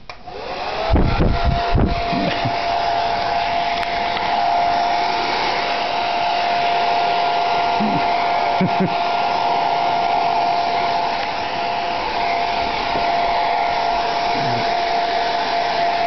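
Hand-held hair dryer switched on just after the start, its motor whine rising in pitch and settling into a steady whine over a rush of blown air. A few dull thumps come about a second in as it gets going.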